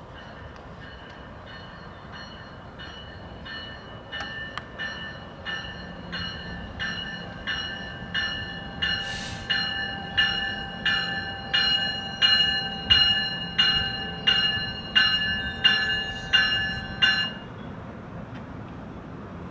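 Passenger train's bell ringing steadily as the train pulls into the station, a stroke about every two-thirds of a second, growing louder as it nears and stopping suddenly near the end, over the low rumble of the train. A short hiss sounds about halfway through.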